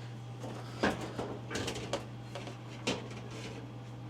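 A few sharp clicks and knocks from dryer parts being handled and fitted back together during reassembly, over a steady low hum.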